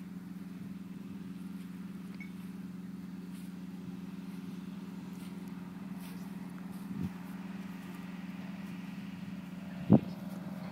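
A steady low hum continues without a break. A short knock comes about seven seconds in, and a sharp, much louder knock comes near the end.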